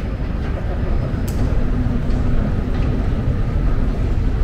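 Steady low rumbling background noise of an airport terminal hall, with one sharp click about a second in.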